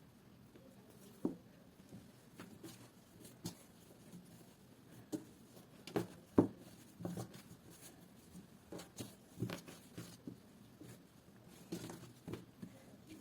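Kitchen handling noises: irregular soft knocks and taps, a dozen or so, the sharpest about six seconds in.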